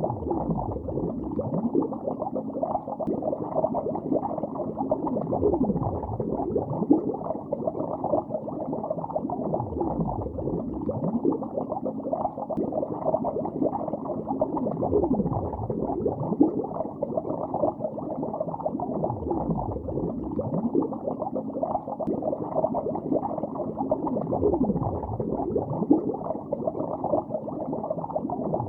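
Bubbles in lake water heard from underwater: continuous muffled bubbling and gurgling full of short gliding bubble tones, with a deeper swell about every five seconds.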